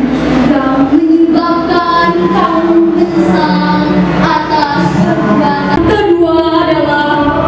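Teenage girls' voices singing a melodic chant into microphones, with long held, gliding notes.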